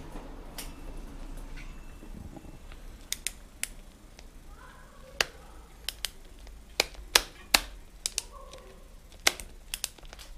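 Twist-grip gear shifter of a synchronized front-and-rear shifting system being turned on the handlebar, clicking through the gears like a ratchet: a series of sharp, irregular clicks, some in quick pairs.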